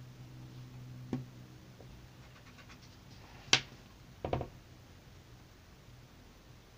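Pencil handling on paper over a tabletop: a few light taps and ticks, a sharp click about three and a half seconds in, then a dull double knock, over a faint low hum.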